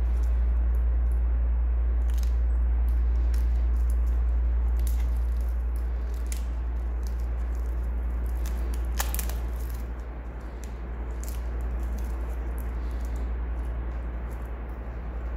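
Hands peeling clear protective plastic film off a stainless steel watch bracelet, with light crinkles of the film and small clicks of the metal links, one sharper click about nine seconds in. A steady low hum runs underneath and is the loudest sound.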